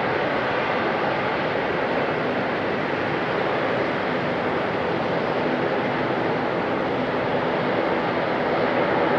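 Airbus A330-200's Rolls-Royce Trent 700 turbofan engines running at taxi idle as the airliner rolls past: a steady rushing hum with a faint whine, growing a little louder near the end.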